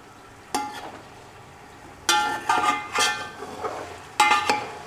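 Metal slotted spatula scraping and knocking against a metal cooking pot while chicken and tomato masala is stirred and fried, over a steady sizzle. The scrapes ring with a metallic tone: one about half a second in, then several in quick succession from about two seconds on.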